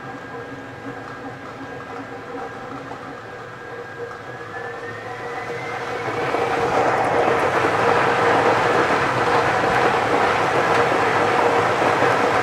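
Lottery ball-drawing machine running: a steady blower hum whose whine rises in pitch about four seconds in as the air flow builds. The balls rattle and clatter against the clear plastic sphere, growing much louder from about six seconds in as they are tossed around.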